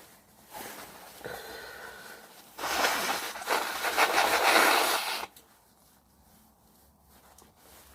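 A man blowing his nose: a softer blow with a faint whistle for about two seconds, then a louder, longer blow of about two and a half seconds that stops abruptly.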